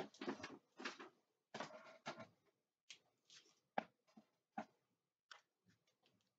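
Faint handling of trading cards and plastic card holders: soft rustling for the first couple of seconds, then a few light, separate clicks and taps.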